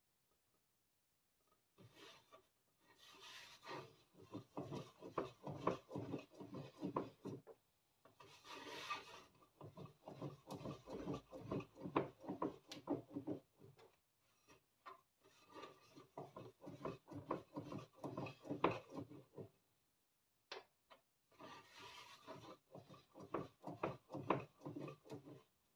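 Wooden rolling pin rolled back and forth over small pieces of dough on a board, rolling out momo wrappers: rapid runs of rubbing, knocking strokes in several spells, with short pauses between them.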